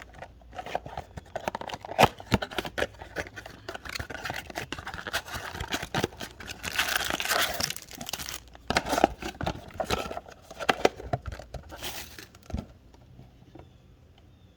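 Plastic wrapping of a trading-card blaster box crinkling and tearing as it is opened, with sharp clicks and knocks from the cardboard box being handled. It quietens about two seconds before the end.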